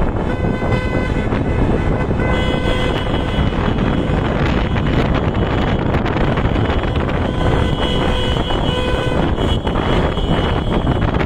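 Vehicle horns honking in long held blasts, one stretch for about three seconds near the start and another about seven seconds in, over the steady rush of wind and road noise from a moving car.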